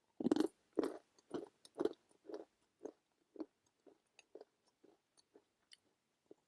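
Close-up crunchy chewing of a hard almond-cranberry biscotti, about two chews a second, loudest in the first couple of seconds and then growing softer.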